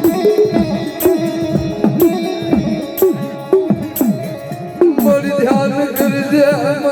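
Gujarati devotional folk music between sung lines: an instrumental passage with a strong beat roughly once a second. A wavering, held melody line comes in about five seconds in.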